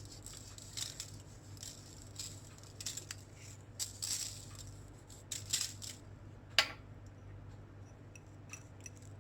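Salt being sprinkled over a raw salmon fillet: faint, scattered rattling and light taps at irregular moments.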